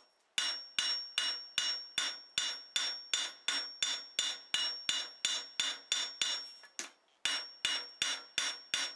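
Farrier's rounding hammer striking hot flat steel on an anvil in a steady rhythm of about two and a half blows a second, each blow ringing brightly. The blows pause briefly about seven seconds in, then resume. The hammer is drawing out the cheeks of a stag-horn hinge head, leaving a central ridge.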